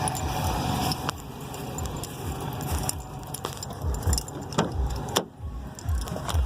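Loose things jangling and clicking inside the cab of a 1999 Ford F-150 as it drives over rough ground, over the truck's low running rumble and uneven low thumps.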